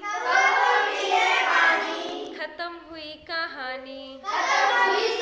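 A group of children singing a Hindi action rhyme in unison, with a single voice singing a line on its own in the middle before the group comes in again.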